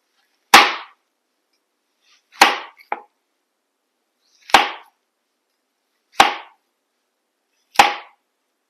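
A German stainless-steel chef's knife slicing down through an onion and hitting the cutting board, five cuts about a second and a half to two seconds apart, each a sharp knock with a brief tail.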